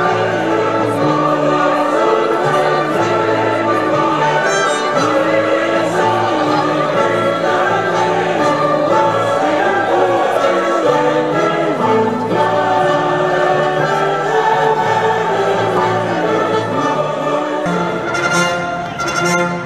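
Choral music: a choir singing with orchestra, loud and continuous. About 18 s in it changes abruptly to a different passage.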